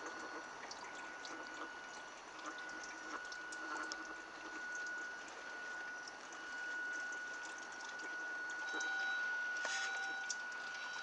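Water churning and trickling as a radio-controlled toy pirate ship's propeller drives and turns it in a small tub of water, with a steady high whine throughout. A refuse collection lorry makes noise in the background.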